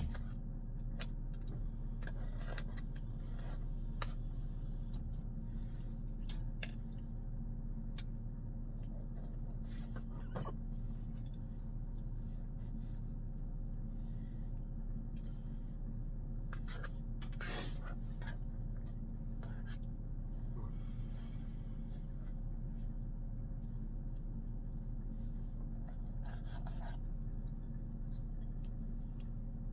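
A steady low mechanical hum with scattered light clicks and scrapes, the most prominent about ten seconds in and again around seventeen to eighteen seconds.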